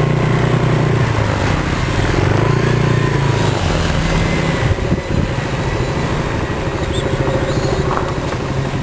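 A vehicle engine running steadily with a low hum; its note shifts and eases a little about four seconds in.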